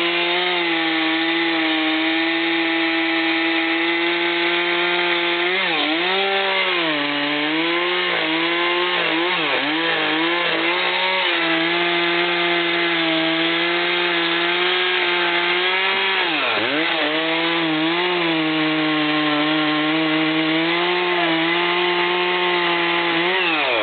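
Chainsaw engine running at high revs while cutting through a thick tree trunk, its pitch steady but dipping briefly as the chain takes load: once about six seconds in, several times between eight and ten seconds, deeply around sixteen seconds, and again near the end.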